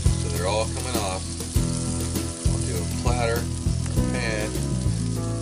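Background music with a steady bass line and a wavering melodic lead, over the sizzle of sauce-glazed chicken skewers on a cast-iron charcoal grill.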